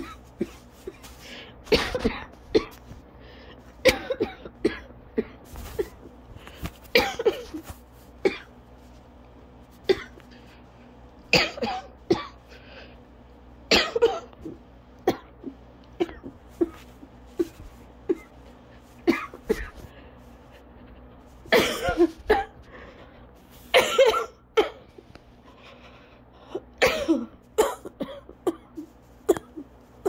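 A person coughing over and over in an asthma coughing fit, unable to stop. Harsh coughs come every second or two, some singly and some in quick runs, with the loudest about twenty-two and twenty-four seconds in.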